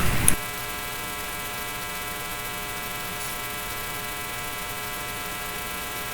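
Steady electrical hum with many evenly spaced overtones, unchanging in pitch and level.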